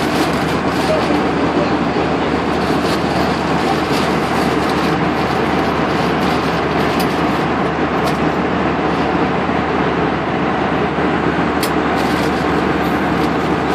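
Steady cabin noise of an Airbus A320 in cruise: jet engines and rushing airflow heard from a window seat, with a few faint clicks.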